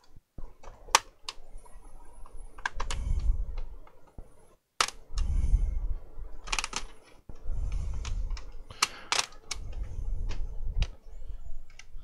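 Hands working a laptop: scattered sharp clicks of keys and the touchpad being pressed, with dull low bumps of the machine being handled between them.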